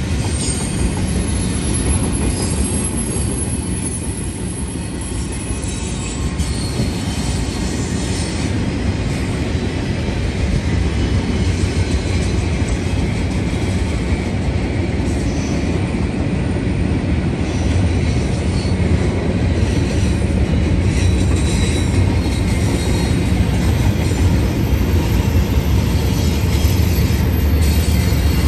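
Double-stack intermodal freight train rolling past: a steady rumble and clatter of the railcars with wheel squeal flickering high above it. The low rumble grows louder over the last several seconds as the BNSF diesel locomotive at the end of the train draws near.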